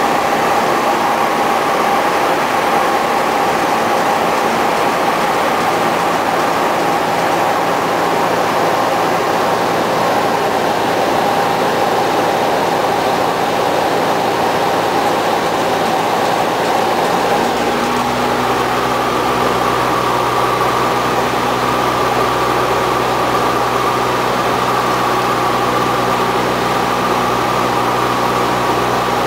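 Cabin noise of a light single-engine propeller airplane in flight: the piston engine and propeller drone steadily. About two-thirds of the way through, the engine note changes, with a deeper hum coming in underneath.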